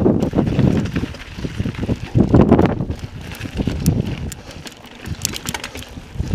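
Mountain bike ridden over slickrock: wind buffeting the camera microphone and the knobby tyres on the rock make a heavy, uneven rumble, with sharp clicks and rattles from the bike. The rumble eases off after about four seconds, leaving mostly the clicks.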